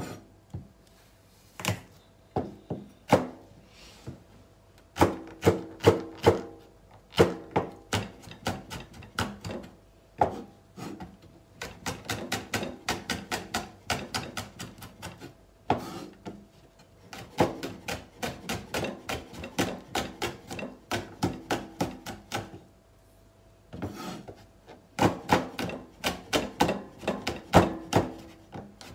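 Chef's knife cutting garlic cloves on a wooden cutting board: separate knocks of the blade as the cloves are sliced, then quick runs of rapid taps as the garlic is chopped fine.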